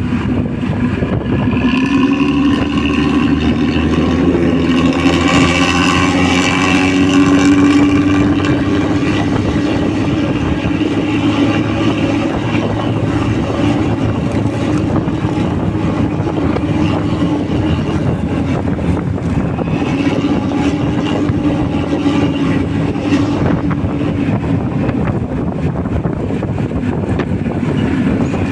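Hino bus diesel engine running under way, with a deep, snoring 'ngorok' exhaust note. The engine note rises a little a few seconds in, then holds steady.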